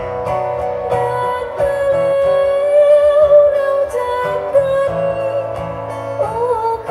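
Live band music with a woman singing into a microphone; her voice comes in after a moment and holds a long note in the middle.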